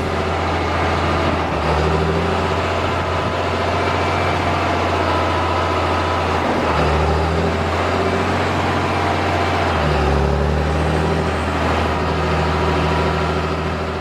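Heavy harvest machinery, a combine or a large tractor, running steadily under load; its low engine drone shifts pitch a few times.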